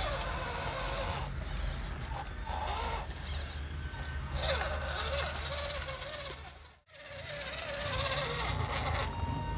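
Small electric motors and gears of radio-controlled scale trucks whirring as they crawl over dirt and gravel. The sound drops out abruptly about seven seconds in, then picks up again.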